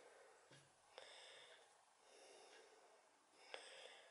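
Faint scuffling of two cats play-fighting on a towel in a washbasin: soft taps, each followed by a short breathy hiss, recurring every second or so.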